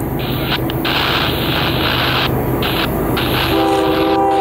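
Diesel locomotives leading a freight train, their engines rumbling as the train approaches. About three and a half seconds in, the locomotive's multi-chime air horn starts and is still sounding at the end.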